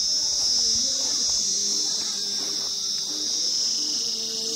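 Steady, high-pitched insect chorus, with faint low tones beneath it.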